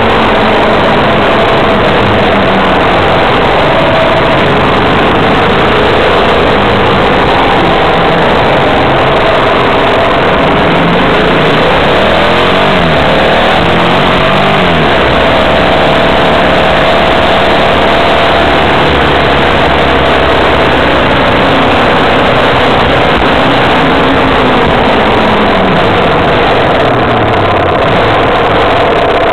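Car engine and road noise heard from inside a moving car: a loud, steady rush, with the engine's pitch rising and falling a little as the car speeds up and slows in traffic.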